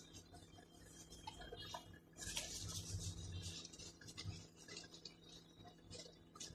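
Faint rustling and small taps of glued paper being pressed and smoothed onto the inside of a cardboard box by hand. The rustle is loudest about two to three seconds in.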